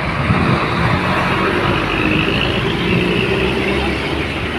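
A large bus driving past close by: steady engine and tyre noise, with no horn sounding.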